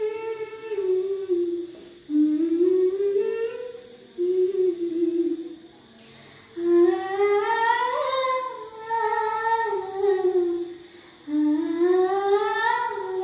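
A woman humming a melody unaccompanied, in short phrases that rise and fall, with brief pauses between them.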